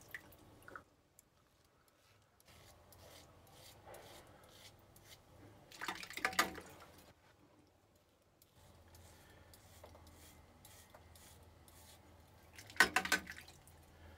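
Single-edge OneBlade Genesis safety razor scraping through lathered stubble in short strokes, with two brief louder sounds about six seconds in and near the end.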